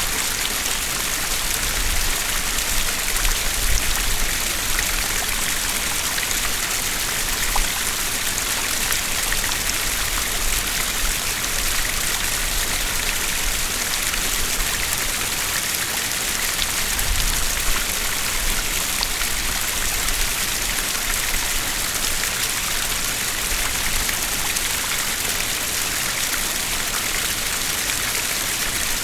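Two small streams flowing over rocks at once, a steady splashing rush of water heavy in hiss, with occasional low rumbles.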